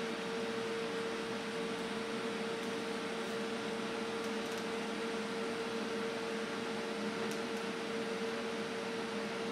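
TIG welding arc on 304 stainless steel exhaust pipe, filler rod fed in at the flange joint: a steady hiss with a constant hum.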